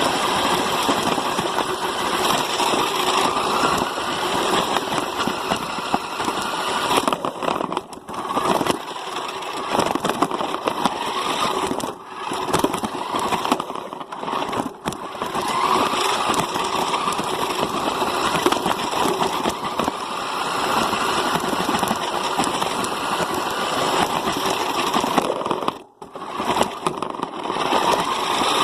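Loud, continuous engine-like noise with a rough, crackling texture. It drops out briefly several times, most sharply about four seconds before the end.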